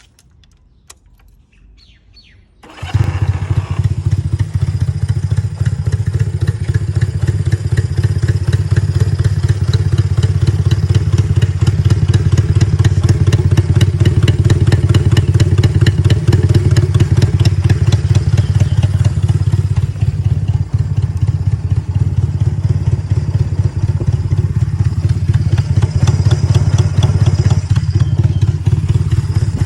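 Honda C95 150 cc parallel-twin four-stroke motorcycle engine starting about three seconds in, then idling steadily with a fast, even ticking beat.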